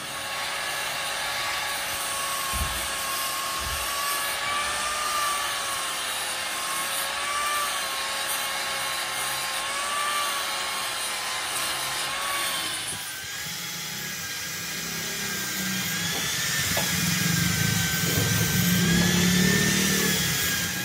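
Hand-held angle grinder with a blue abrasive disc running against the steel body of a bottle hydraulic jack, grinding and polishing the metal: a steady motor whine over a harsh hiss. About two-thirds of the way through, the whine steps up to a higher pitch.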